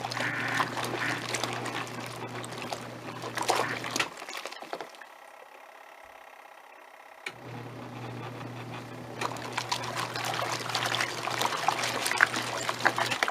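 Twin tub washing machine's wash tub agitating a load in soapy water: a steady motor hum with water sloshing and churning. About four seconds in it pauses, then starts again about three seconds later, as the pulsator changes direction.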